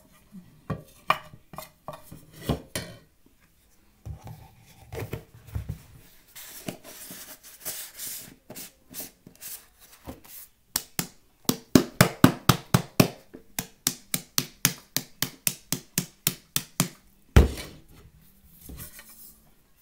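Argo cornstarch being crunched: a rustling stretch, then a quick run of sharp crunchy clicks, about five a second, ending with a single thump.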